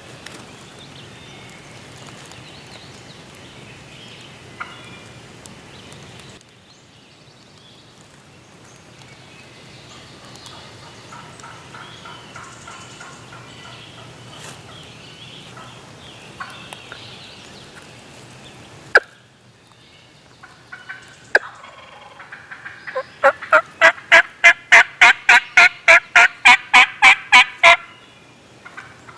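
A long run of loud turkey yelps near the end, nearly four a second for about five seconds. A single sharp click comes shortly before.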